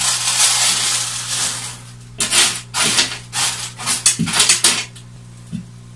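Small aquarium gravel poured from a plastic basket onto substrate in a glass tank: a continuous rattling rush for the first two seconds, then a run of shorter clattering pours that stops about five seconds in.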